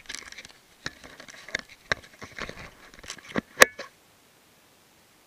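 Handling noise of a camera being fitted in its mount: a run of clicks, knocks and scrapes, ending in a sharp click about three and a half seconds in.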